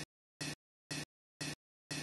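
Digital audio glitch: the same short burst of sound repeats about twice a second, each cut off abruptly into dead silence, in a stuttering loop.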